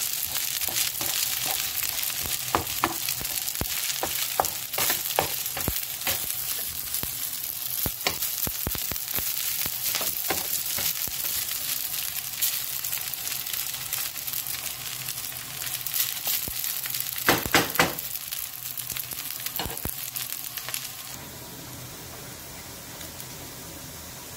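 Fried rice sizzling in a hot pan while it is stirred, with soy sauce just added, and the stirring utensil clicking and knocking against the pan. A quick run of knocks comes about 17 seconds in. The sizzle drops away about three seconds before the end, leaving a faint steady hiss.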